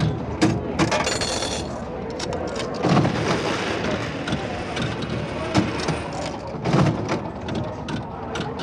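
Vintage slot machine paying out: coins clattering into the metal payout tray in a dense run of clinks and knocks, with a few heavier thuds.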